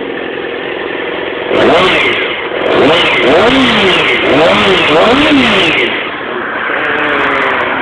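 Yamaha YZF-R6 inline-four sport bike engine idling, then revved in five or so quick throttle blips, each rising and falling in pitch, before settling back to idle near the end.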